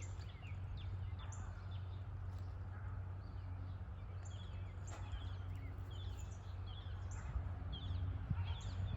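Small birds chirping repeatedly in short calls over a steady low hum of background noise.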